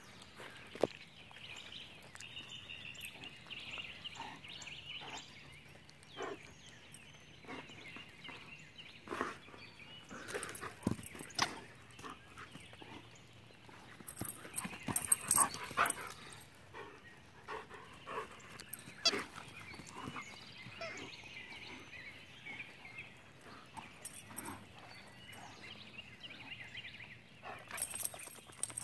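A German Shepherd playing with a stuffed toy on grass: scattered knocks and rustles as it pounces on, mouths and shakes the toy. Birds sing in the background.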